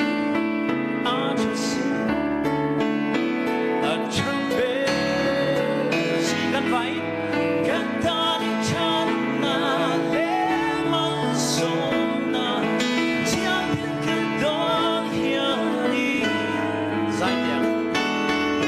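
A man singing a slow song into a handheld microphone over instrumental backing, his held notes wavering with vibrato.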